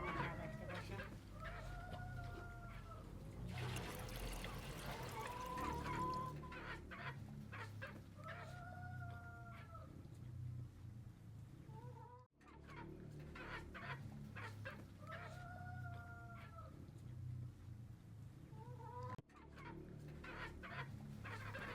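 A rooster crowing three times, several seconds apart, with hens clucking in between. A few seconds of rushing noise come near the start.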